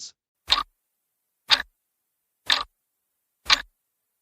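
Countdown-timer clock ticks, one sharp tick each second with silence between them, four in all.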